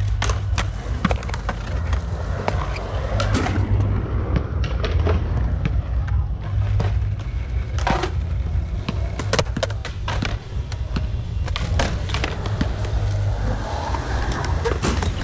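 Skateboard wheels rolling over the concrete of a pool bowl, with repeated sharp clacks and knocks of boards hitting the surface, over a steady low rumble.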